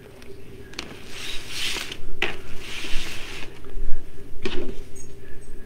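Craft mesh and ribbon rustling as it is handled and worked onto a wreath frame, in two spells of about a second each, with a few light clicks and knocks between them.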